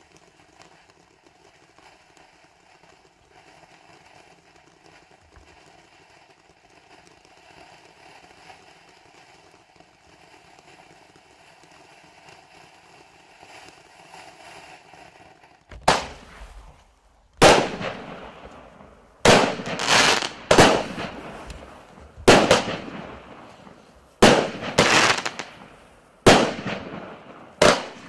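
Firework fountain of a 'Vinni-Bukh' fountain-and-cake combination spraying with a faint steady hiss for about fifteen seconds. Then its 0.8-inch shots fire in quick succession: about ten sharp, loud bangs over the last twelve seconds, each fading out in a short tail.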